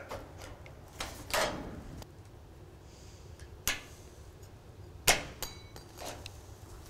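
Aviation tin snips cutting the edge of a sheet-metal roofing panel: a series of separate sharp snips and metal clacks. The loudest comes about five seconds in and is followed by a brief metallic ring.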